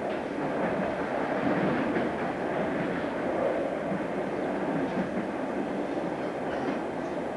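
Train running along the track: a steady rumble of wheels on rails with a few faint clicks.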